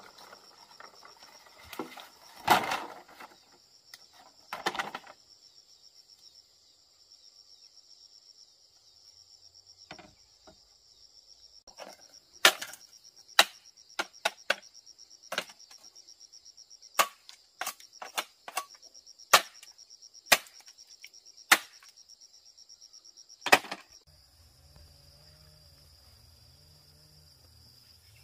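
Machete chopping a bamboo pole: about a dozen sharp strikes at irregular intervals of about a second through the second half. Two duller knocks come in the first few seconds, over a steady high insect chorus.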